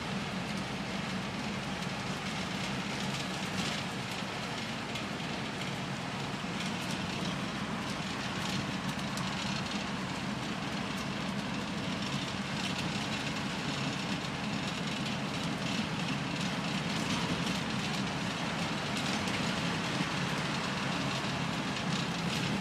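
Routemaster double-decker bus under way, heard from the upper deck: the diesel engine's steady low drone mixed with road and body noise.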